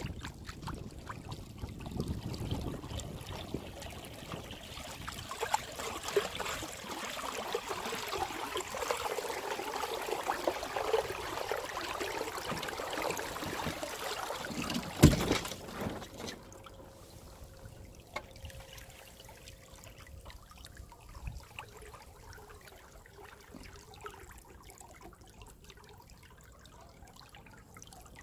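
Lake water trickling and splashing along the hull of a moving sailboat. There is one sharp knock about halfway through, and the water sound is quieter after it.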